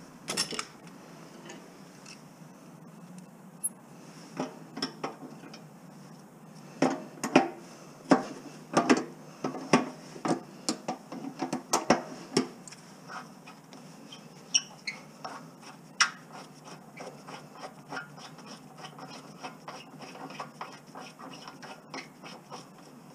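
Irregular clinks, taps and scrapes of hand tools working on scrap metal, with a denser run of sharp clicks in the middle.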